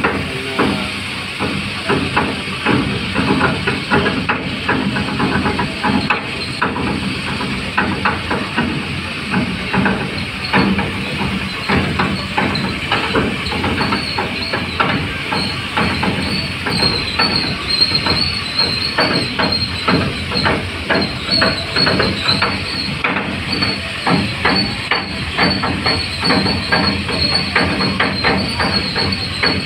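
Ship's diesel engine running as the cargo barge gets under way, with a steady rhythmic chugging knock and a hiss. A high wavering whine joins about a third of the way through.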